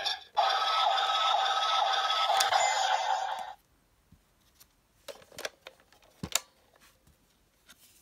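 Bandai DX Legendriver toy belt playing an electronic sound effect through its small speaker for about three seconds, then cutting off suddenly. A few sharp clicks follow as the toy is handled.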